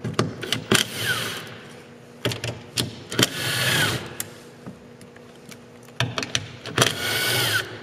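Bosch 18V cordless driver spinning off a truck mirror's three mounting nuts: three short runs, each ending in a falling whine as the motor winds down, with clicks of the tool and nuts in between.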